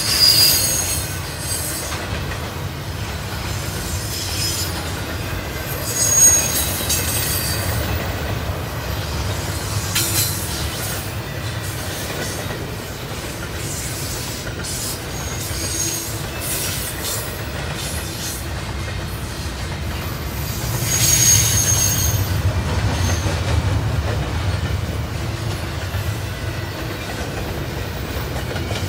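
BNSF intermodal train's double-stack container well cars rolling past, a steady low rumble of wheels on rail. Brief high-pitched wheel squeals come and go, the loudest near the start, about six seconds in, and again around twenty-one seconds.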